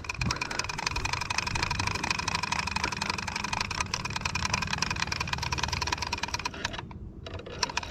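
Fishing reel drag ratcheting in a fast, steady run of clicks as a hooked stingray pulls line off, over a low hum. The clicking cuts out about seven seconds in, where the line snaps.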